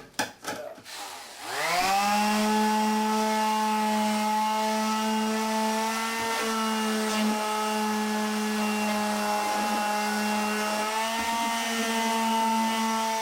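A few clicks, then an electric hand sander switched on, spinning up over about a second and running steadily while finish-sanding the wooden stand.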